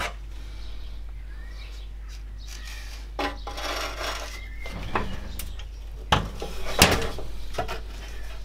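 Handling noises from a classic Mini heater unit as a new heater matrix is slid into its metal casing: scraping and rubbing with several sharp knocks, the loudest late on.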